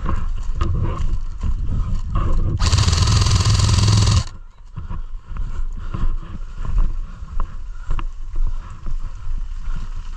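Footsteps on a muddy path and branches brushing past as a player moves through scrub, with irregular thuds and rustling. About two and a half seconds in, a loud burst of noise lasts about a second and a half and cuts off sharply.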